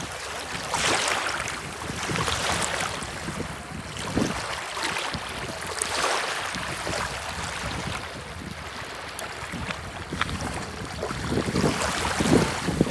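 Small waves on a reservoir washing and breaking against the shore, swelling and easing every second or two, with wind rumbling on the microphone.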